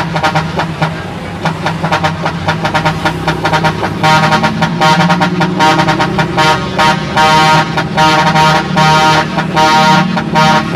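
A bus's Basuri telolet horn playing a tune in quick, pulsing notes, getting much louder about four seconds in, over the steady running of the bus engine.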